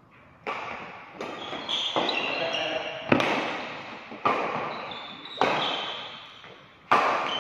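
Badminton rally: rackets striking the shuttlecock about once a second, each sharp hit ringing on briefly in a large echoing hall.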